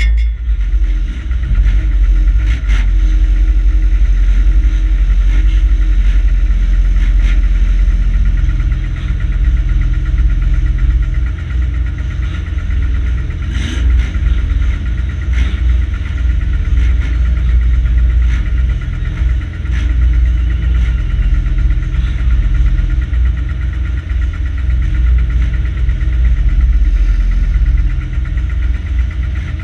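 Banger racing car's engine idling with a deep, uneven rumble while the car stands still, heard from inside the cabin.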